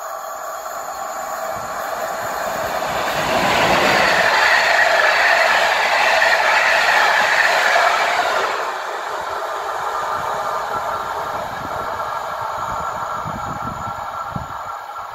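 A PKP Intercity passenger train of locomotive-hauled coaches passing on the far track. Its wheel-and-rail rushing noise builds over the first few seconds and stays loudest for about four seconds. It then drops suddenly and fades as the train moves away.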